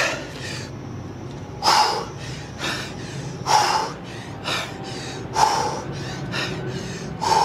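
A man's forceful breathing: five sharp exhales about every two seconds, one with each rep of pike push-ups.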